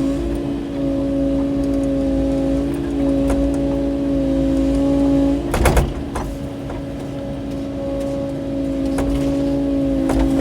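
Kubota KX080-4 excavator's diesel engine and hydraulics running steadily with a constant whine while digging in rocky ground, with a sharp clank of the bucket striking rock about five and a half seconds in.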